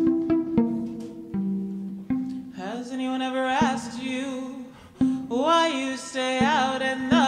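Violin plucked pizzicato, held across the body like a guitar, playing a slow pattern of low, ringing notes. About two and a half seconds in, a woman's voice enters over it, singing long held notes with vibrato.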